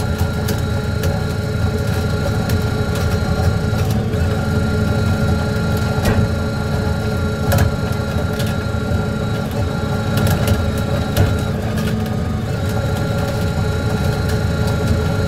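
Fishing trawler's engine and deck machinery running steadily, with a steady high whine and scattered clicks and knocks over it.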